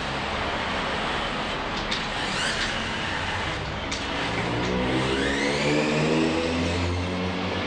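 A motor running with a steady hum and a few sharp clicks, then a whine whose pitch rises from about halfway through.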